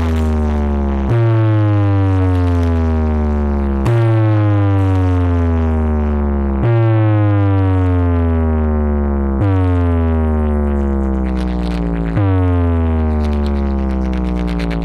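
Large DJ speaker stack playing a pop-bass test track, loud. A deep bass tone slides slowly down in pitch and restarts about every three seconds, five times.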